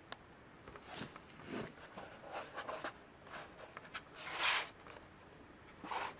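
Hands handling a laptop: a few soft rustling and scraping strokes, the longest and loudest about four and a half seconds in and two more near the end.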